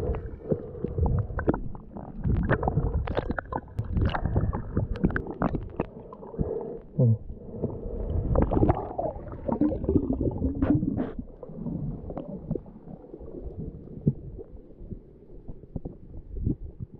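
Muffled underwater sound of moving water, a low rumbling and gurgling, with irregular clicks and knocks throughout.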